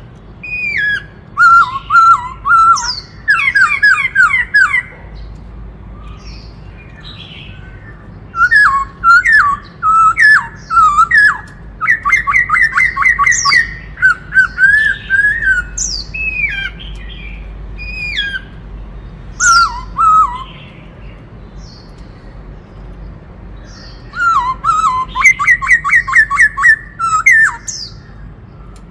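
White-cheeked laughingthrush singing: phrases of quick whistled notes and fast runs of repeated notes, in bursts of a few seconds with short pauses between.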